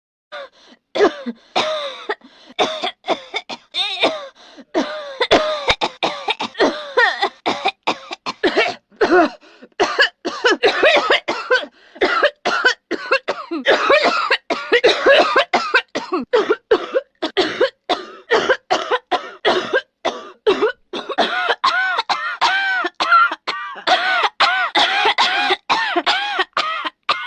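A woman coughing over and over in a long fit: short coughs several a second, starting about a second in and going on with only brief pauses.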